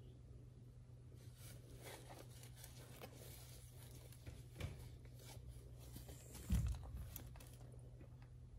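Soft rustling, crinkling and small clicks as a diapered baby monkey and nursing kittens squirm against their mother cat, the disposable diaper crinkling as they move. There are two dull thumps, a faint one about four and a half seconds in and a louder one about six and a half seconds in, over a steady low hum.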